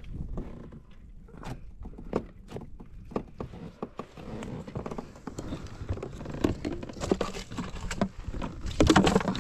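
Irregular knocks, taps and clicks of hands handling gear on a plastic fishing kayak, including a hard plastic tackle box, growing busier and louder near the end.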